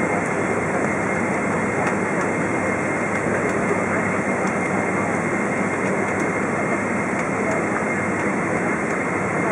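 Steady, even cabin noise of a KLM Boeing 777-200 moving slowly on the ground, its GE90 jet engines running and the airframe rumbling, heard from inside the cabin.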